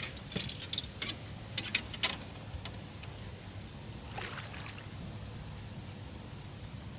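Water lapping against a fishing boat's hull over a steady low hum, with a series of sharp clicks and knocks in the first two seconds and another short cluster about four seconds in.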